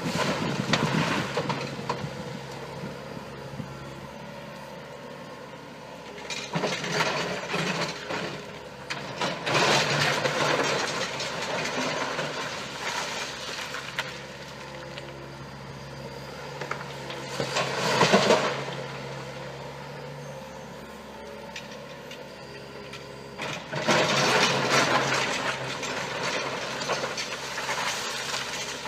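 Excavator engine running steadily, swelling louder several times as the machine works, most strongly about 18 seconds in and again near the end.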